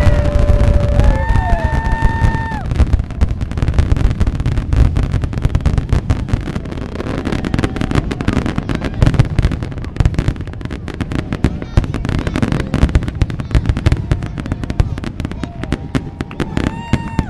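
Aerial fireworks finale: a dense, continuous barrage of deep booms and rapid crackling bursts, with a few held tones sounding near the start and again near the end.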